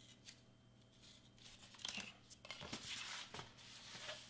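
Foam board pieces being handled and slid across a cutting mat: a run of short, irregular scraping and rustling sounds, mostly in the second half.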